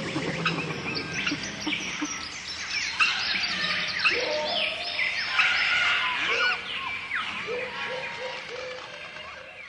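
Many birds calling and singing at once, a dense chorus of chirps and whistled notes that fades out over the last few seconds.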